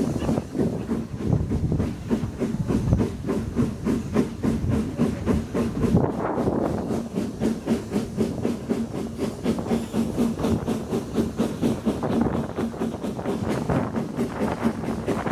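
BR Standard Class 9F steam locomotive 92203 running under steam: a steady train of rapid exhaust beats with hiss from the engine, mixed with the rumble and clatter of coach wheels on the rails, heard from an open coach window just behind the tender.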